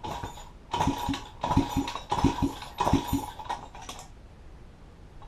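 Irregular metal clicks and clinks from hand work on a pit bike's parts, a quick run of small knocks over about four seconds that then stops.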